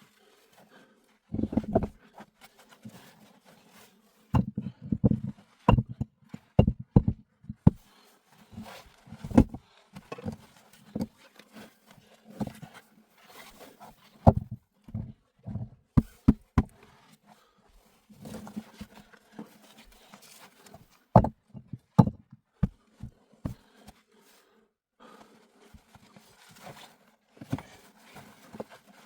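Hands-on outdoor work: irregular knocks, cracks and crunching scrapes, coming in uneven clusters with short pauses between.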